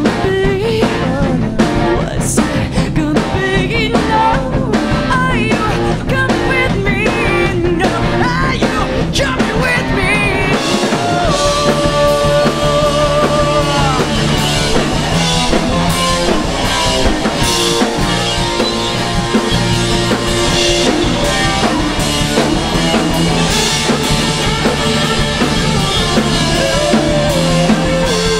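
Glam-punk rock band playing loud and live: electric guitar, bass and drum kit. A lead line wavers up and down in pitch through the first ten seconds or so.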